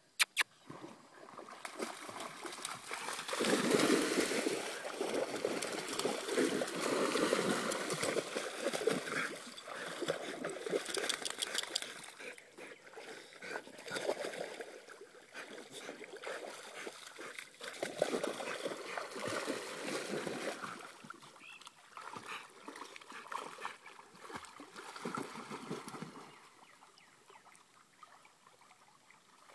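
Dogs splashing and paddling through shallow river water, in uneven surges that are loudest a few seconds in and die away near the end.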